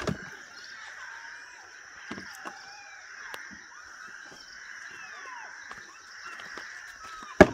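Birds calling in short curved chirps over a steady high drone, with a sharp knock right at the start and a louder one near the end.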